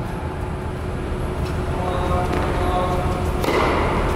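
Steady low rumble of a large indoor tennis hall, with a few faint ticks and one sharper hit about three and a half seconds in, a tennis racket striking the ball.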